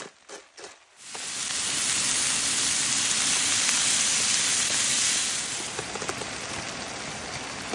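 Food sizzling in a hot pan, starting suddenly about a second in after a few light clicks, loud and steady for a few seconds, then settling to a quieter sizzle.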